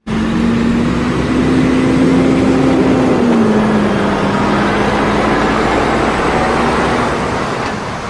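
A large diesel truck with a long trailer drives by, its engine running with a steady hum that drops slightly in pitch about three seconds in, over tyre and road noise.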